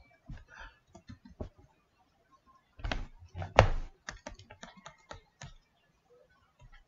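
Computer mouse or pen clicks and taps in irregular bursts, with two louder knocks about three seconds in and a quick run of light clicks after them.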